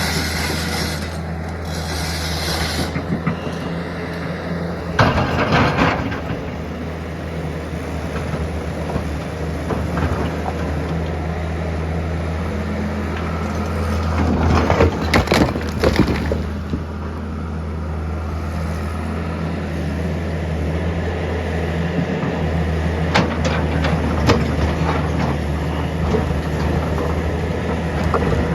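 Heavy construction machine's engine running steadily, with short spells of cracking and crunching about five, fifteen and twenty-three seconds in, as of material being broken or dug.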